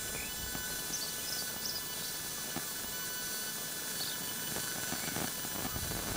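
Distant steady rumble of the Peppercorn A1 Pacific steam locomotive Tornado working its train across a bridge, with a few short high bird chirps.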